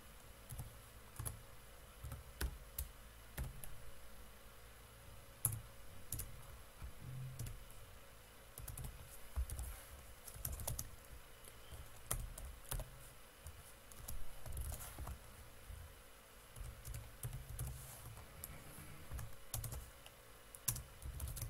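Typing on a computer keyboard: scattered, irregular keystrokes, with a faint steady hum underneath.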